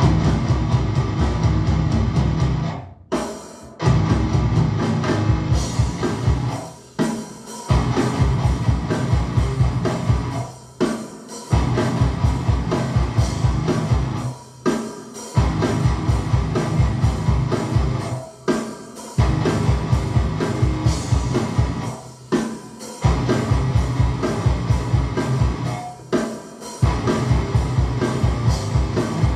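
Rock music with drums and guitar, a steady driving beat broken by short pauses about every four seconds.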